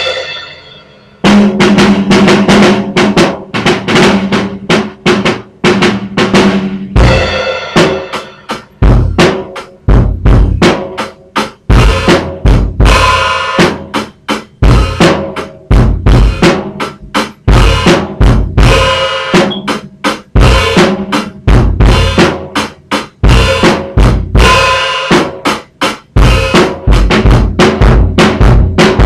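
Pearl drum kit played solo with sticks: a dense run of drum and cymbal hits, broken by a brief pause about a second in.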